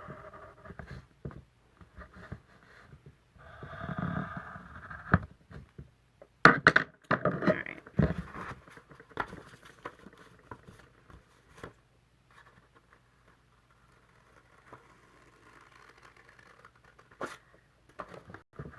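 Paper and cardstock being handled during papercraft: irregular scraping, rustling and small taps, loudest about six to eight seconds in.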